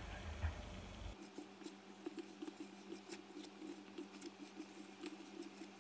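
Hands rubbing butter into flour in a stainless steel bowl: faint, irregular soft patting and rustling with small ticks.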